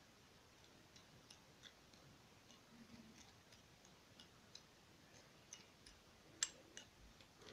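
Faint, irregular clicks and light scrapes of a plastic spoon against a ceramic dish while stirring dry powders (ground oats and milk powder) together, the sharpest click about six seconds in.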